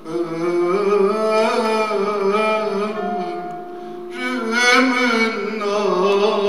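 Turkish classical music ensemble playing, its melody of long held notes with vibrato starting up right at the beginning.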